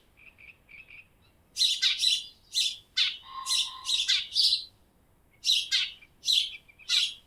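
Birds singing: bouts of quick, high chirps and trills, a short pause, then three separate short calls near the end.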